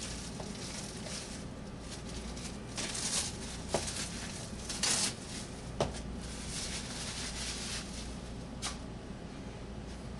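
Kitchen handling sounds as a gelatin-set pork terrine is worked out of its mould: a few sharp knocks and short scrapes, the loudest cluster a little before the middle, over a low steady hum.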